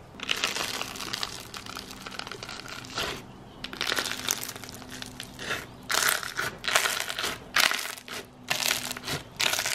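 Slime being squeezed and pressed by hand in a plastic tub, crackling and popping as trapped air bubbles burst. After a short lull about three seconds in, it comes as a run of separate presses roughly a second apart.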